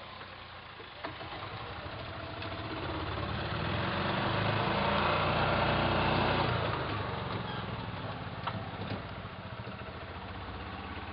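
A vehicle engine running, growing louder to a peak about five to six seconds in and then easing off, with a few sharp knocks.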